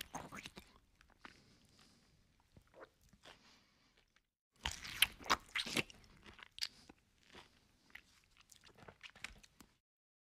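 Eating sounds: a man chewing and crunching mouthfuls of rice and duck curry eaten by hand, in irregular sharp crunches and smacks. A louder run of crunches comes about halfway through, and the sound cuts off suddenly near the end.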